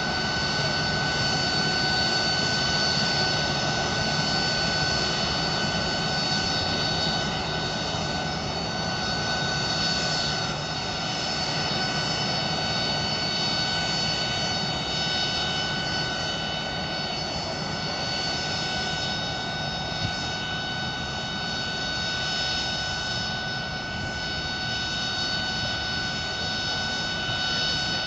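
Steady high-pitched whine of an airliner's jet turbine running at idle, several tones held constant over a low rumble, easing slightly as the aircraft moves away.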